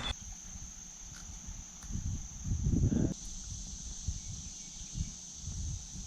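Steady high-pitched buzzing of insects in the creekside vegetation, with low rumbling thumps loudest around the middle.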